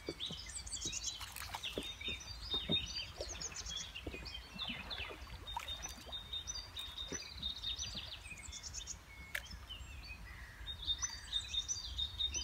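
Songbirds singing and chirping over a steady low rumble, with a few short sharp clicks scattered through.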